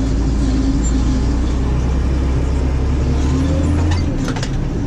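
Massey Ferguson 8210 tractor's diesel engine running steadily at working speed while pulling a disc harrow, with a steady low hum. A few short clicks come about four seconds in, as the low part of the engine note shifts slightly.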